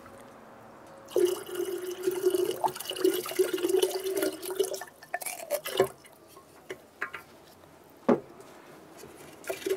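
Piloncillo syrup poured from a small clay pot into a clay pitcher of water: a steady pouring trickle with a held tone, starting about a second in and lasting about four seconds. Two sharp knocks follow, one near the middle and one later.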